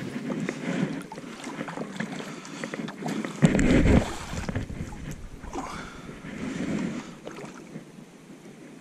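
A splash into shallow lily-pad water about three and a half seconds in, amid rustling and water lapping close to the microphone.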